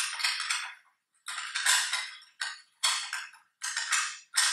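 Half a dozen short bursts of high, bright metallic clattering and jingling, each starting sharply and dying away within about half a second, with silent gaps between.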